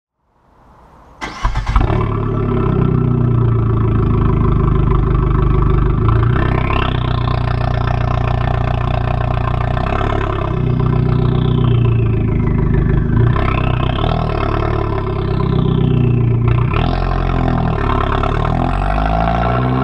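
Abarth 695 Biposto's turbocharged 1.4-litre four-cylinder, heard at the exhaust tip of its Akrapovič exhaust, cutting in sharply about a second in and then running under way, the revs rising and falling several times.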